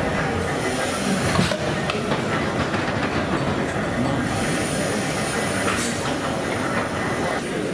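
Victorian steam beam engine built by James Watt & Co., running: a steady mechanical noise from its valve gear and pipework, with a couple of sharp clicks.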